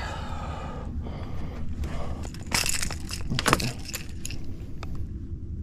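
Handling noise from holding a freshly landed snook: crackly rustling with a cluster of sharp knocks and rattles about halfway through, over a steady low rumble.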